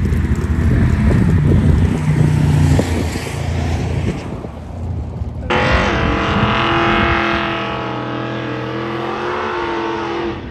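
Race car engines at a drag strip. First a deep engine rumble with a brief rising rev, then, after an abrupt change about halfway through, a higher engine note that wavers up and down and cuts off at the end.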